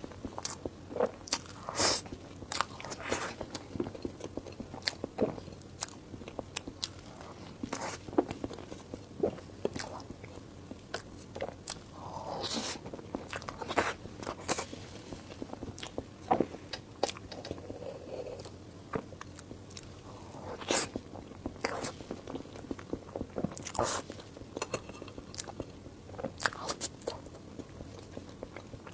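Close-miked eating sounds: irregular bites, crunches and wet mouth clicks as food is chewed.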